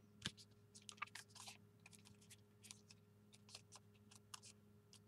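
Faint, irregular small ticks and rustles of a paper library pocket, made from a book page, being handled and pressed shut by hand on a tabletop, the sharpest tick about a quarter second in. A low steady hum runs under it.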